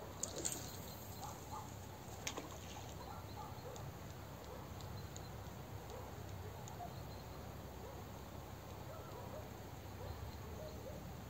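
Steady low outdoor rumble of river and wind, with faint scattered bird chirps. A few sharp clicks come in the first couple of seconds, as a spinning rod is cast and its reel worked.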